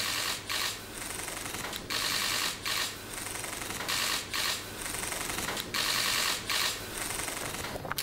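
Many press cameras' shutters firing at once in a dense, continuous clatter that swells into louder short bursts every second or so.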